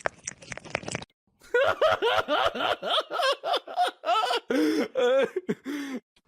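A person laughing hard in quick repeated bursts, several a second, the pitch dropping lower toward the end. Before it comes a second of faint clicking.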